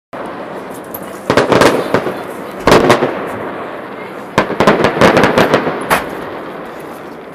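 Fireworks salute: aerial shells bursting in a series of sharp bangs about a second and a half apart, one followed by a run of quick crackles, over a steady background noise.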